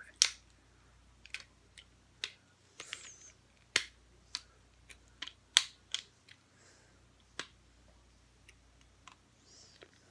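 Plastic Lego bricks clicking and clattering as pieces are handled and pressed together, in scattered sharp clicks at an irregular pace.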